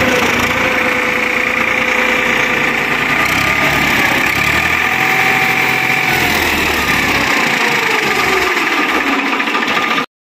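Farmtrac 65 EPI diesel tractor engine running steadily. Its note rises a little about halfway and then falls back, and the sound cuts off suddenly near the end.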